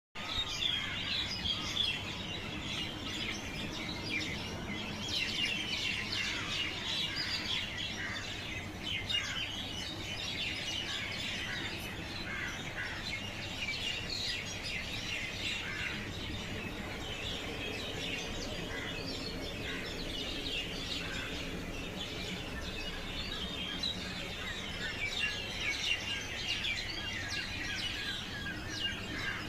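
Many birds chirping and calling over one another in a steady morning chorus of short, high chirps and trills. A steady low hum runs underneath.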